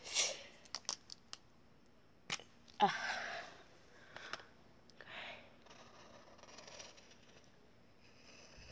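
A few clicks and short breathy noises, then from about halfway a faint, steady scratching of a black marker drawing outlines on paper.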